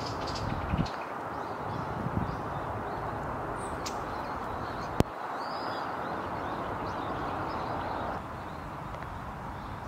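Outdoor ambience: a steady rushing background noise with faint bird chirps. There is a single sharp click about five seconds in, and the background drops slightly in level near the end.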